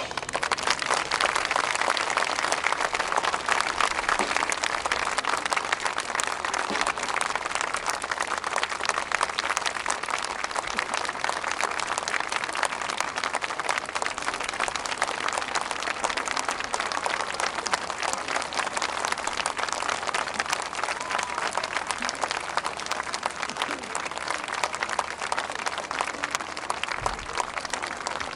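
A large audience clapping steadily after the band's music ends, gradually easing a little toward the end.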